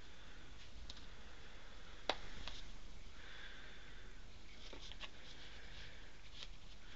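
Huskies moving about in snow, with faint sniffing and soft scuffing of paws, and scattered small clicks, one sharp click about two seconds in.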